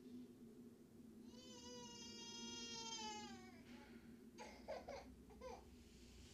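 A faint drawn-out cry lasting about two seconds and falling slightly in pitch at the end, followed by a few short broken sounds, over a low steady hum.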